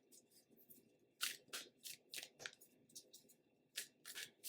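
Tarot cards being shuffled by hand: a scatter of short, soft card rustles and snaps, clustered about a second in and again near the end.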